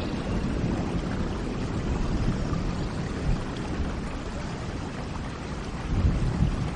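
Steady rain falling, a dense hiss with a heavy low rumble, swelling briefly about six seconds in.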